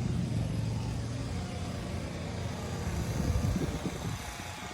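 Outdoor unit of a 2023 Carrier 4-ton (48,000 BTU) heat pump running with a steady low hum, with some uneven low rumbling about three seconds in.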